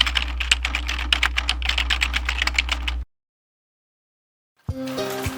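Rapid, irregular clicking over a steady low hum, cutting off abruptly about three seconds in. After a short silence, music with rain behind it begins near the end.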